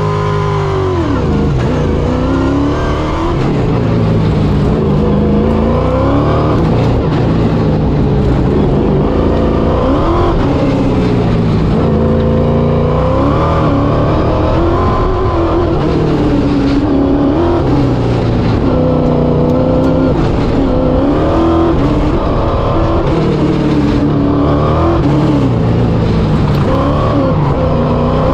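A race car's engine being driven hard through an autocross course, its pitch rising and falling again and again every couple of seconds as it accelerates and lifts between turns.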